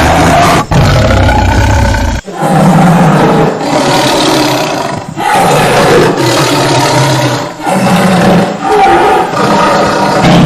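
Tiger roaring and growling in a run of loud, low calls, broken by a few brief gaps.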